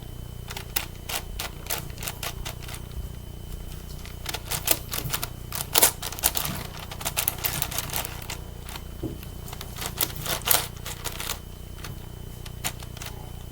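A 9x9 Rubik's cube being turned by hand: quick clicking and clacking of its plastic layers in irregular bursts, thinning out near the end.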